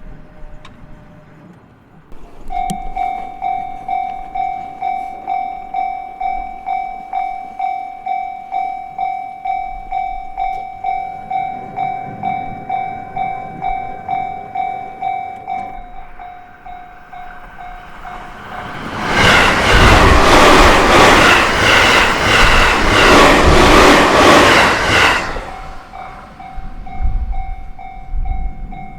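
Japanese level-crossing warning bell ringing in a steady pulse about twice a second. About twenty seconds in, a JR Sobu Line train passes over the crossing for about six seconds, the loudest sound, its wheels clacking over the rail joints. The bell is heard again near the end.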